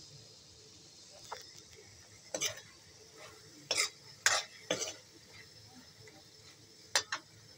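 Metal spatula scraping and knocking against a metal kadai while stirring chunks of carrot, beetroot, potato and peas. The strokes come at irregular intervals, with the loudest ones in a cluster around the middle.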